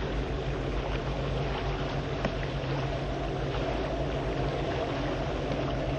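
A boat's engine droning steadily, with a haze of wind and water noise over it.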